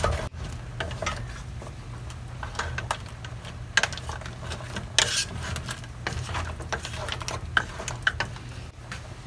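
A wooden spatula stirring and turning whole crabs and vegetables in a stainless steel pot of coconut milk: scattered clacks and knocks against the pot over a steady low hum.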